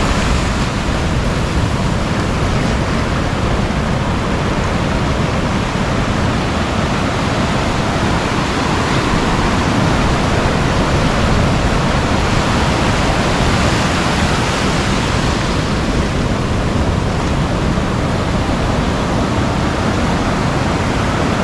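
Ocean surf breaking and washing up over the shallows of a beach: a loud, steady rush of water.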